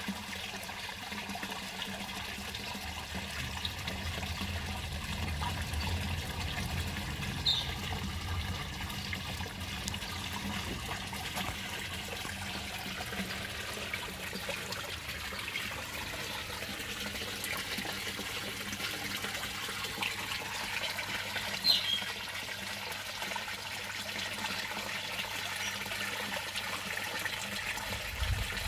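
Water falling from a spout into a koi pond, a steady splashing and trickling. Two short high chirps come over it, once early and once about two-thirds of the way through.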